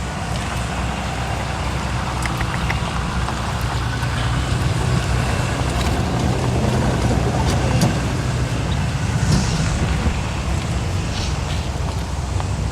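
Steady low drone of a vehicle engine running, with a constant hum and a rushing noise over it.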